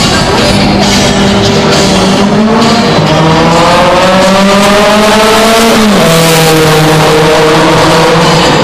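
Rally car's engine revving hard as it accelerates down the straight, its pitch climbing steadily and then dropping sharply with a gear change about six seconds in, with music playing throughout.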